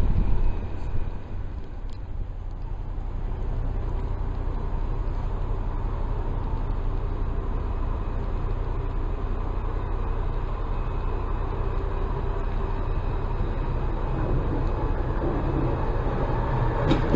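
Alstom Citadis 403 tram approaching along the track: a steady low rumble with faint steady tones from its running gear, growing louder near the end as it comes close.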